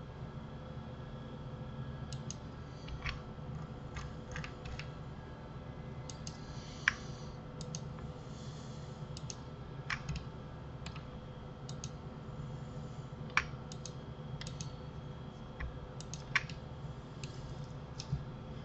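Computer keyboard keys and mouse buttons clicking irregularly, a few clicks every second or two, over a faint steady hum.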